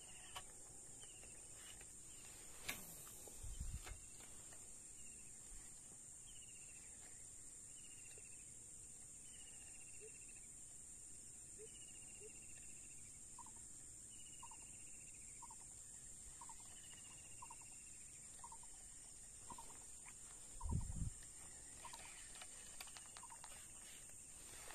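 A steady high drone of insects with a bird repeating short falling whistled notes, about one a second; in the latter half a second run of short, lower notes joins in. A couple of dull low thumps sound, one a few seconds in and one near the end.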